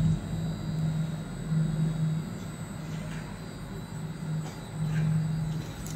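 Cummins 6BTA5.9 inline-six turbo diesel fire-pump engine running at a steady speed: an even low hum that swells and eases every second or so.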